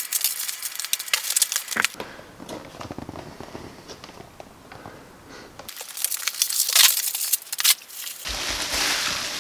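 Packaging being handled as a light fixture is unboxed: a cardboard box opened and moved, and plastic wrap around a glass globe crinkling. The crackling comes in a busy stretch at the start and again from about six seconds in, quieter in between.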